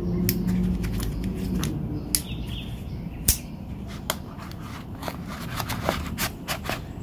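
Metal hand tools being handled and slotted into a nylon tool belt pouch by gloved hands: a run of light clicks and knocks, with a steady low hum for about the first two seconds.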